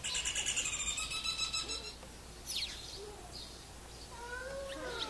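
Barred antshrike calling: a fast rattling series of nasal notes lasting about two seconds. It is followed by a short downward-sliding note and softer curving calls near the end.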